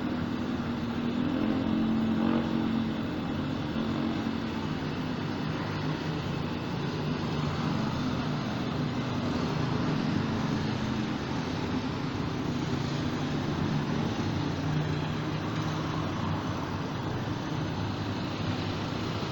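City street traffic: a steady hum of vehicles, with engines swelling as vehicles pass, about two seconds in and again through the middle.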